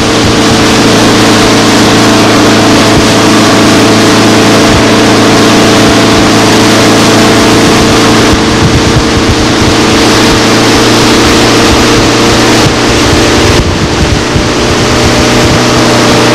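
Towing motorboat's engine running steadily at speed, a constant loud drone under the rushing noise of the wake and wind.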